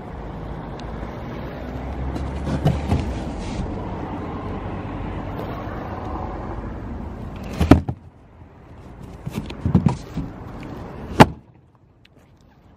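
Clunks from the hinged plastic lid of a generator's soundproof enclosure being handled, ending with a loud thud as the lid shuts about eleven seconds in. A steady rumble runs under the first half.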